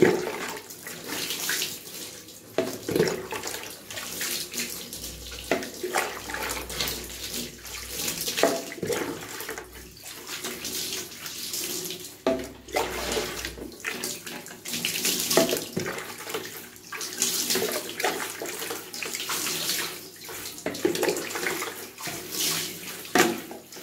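Water poured from a plastic cup over a wet dog in a bathtub, splashing in uneven pours as the cup is dipped again and again into a bucket of water.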